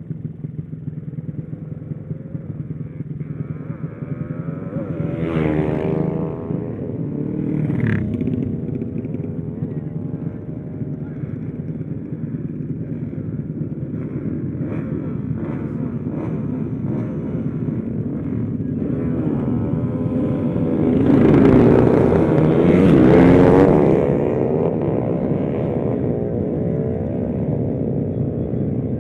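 Motorcycle engine running steadily under way, heard close on the rider's mic. Other engines swell up and pass about six and eight seconds in, and again, loudest, from about 21 to 24 seconds.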